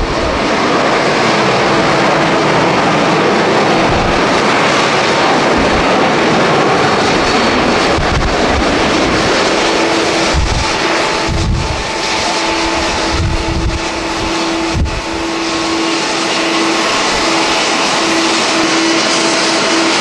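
Boeing 787 airliner's jet engines at takeoff thrust during the takeoff roll: a loud, steady rush of jet noise. About halfway through, low gusts of wind buffet the microphone.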